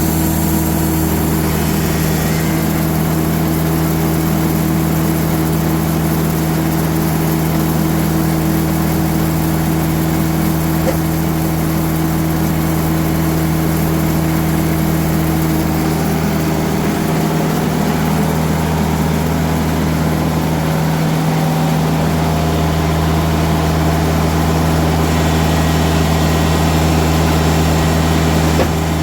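Diesel engine of a band sawmill running steadily at a constant speed, its low note dipping briefly twice past the middle.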